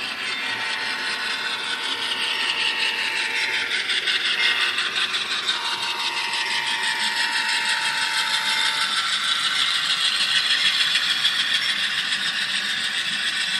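N-scale ScaleTrains GE C44-9W model diesel locomotives running on the track: a steady mechanical whir of motors, gears and wheels. A steady tone comes on twice, and a pitch slowly falls across the middle.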